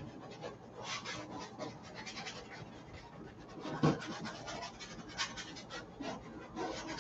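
Paintbrush strokes on a stretched canvas: short, irregular scratchy brushing and dabbing, with a soft thump about four seconds in.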